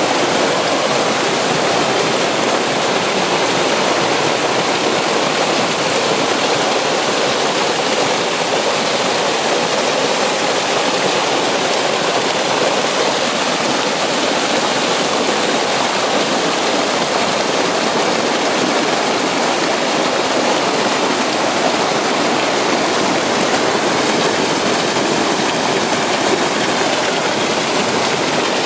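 Spring water cascading over rocks in a small waterfall, heard close up: a steady, loud rushing and splashing.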